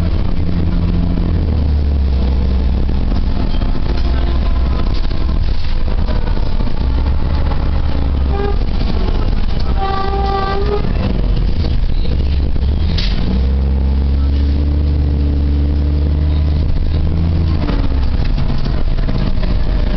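Interior sound of a bus under way: the Cummins L10G natural-gas engine drones through an Allison B400R automatic transmission. Its note rises and falls in pitch as the bus speeds up and eases off. About halfway through there is a short pitched tone.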